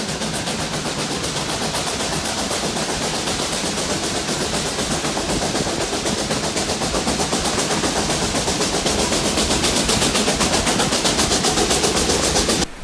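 Rio Grande K-37 class 2-8-2 narrow-gauge steam locomotive No. 493 working toward the listener, its exhaust chuffing in a rapid, even beat. The chuffs grow louder as it approaches.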